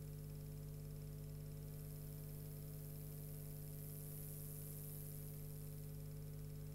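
Steady low electrical hum and buzz with faint hiss, unchanging throughout, with no other sounds.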